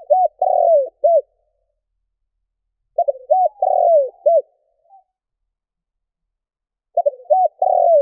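Spotted dove cooing. Each phrase is a few short coos and one longer, falling note, repeated about every four seconds, three times.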